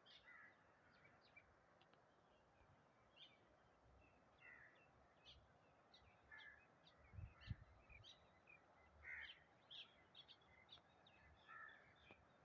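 Faint bird calls: short chirps scattered throughout over a steady background hiss, with a couple of low thumps about seven seconds in.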